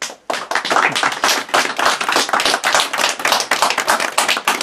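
A small audience applauding: many hands clapping densely and steadily, breaking out all at once.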